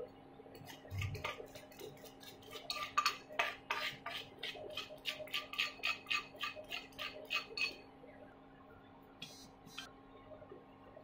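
Wooden spatula stirring thick mung bean paste in a nonstick pan, working the added sugar in: a run of rhythmic scraping strokes, about three or four a second, that stops a few seconds before the end, followed by two more strokes. A faint steady hum sits underneath.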